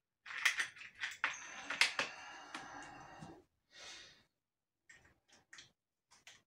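Handling noises as a red abrasive wheel is fitted onto a Dremel rotary tool: a cluster of clicks and rustling in the first three seconds, then a few scattered clicks.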